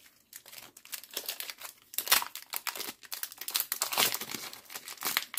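Foil Pokémon booster pack wrapper crinkling and being torn open by hand, a dense, irregular crackle.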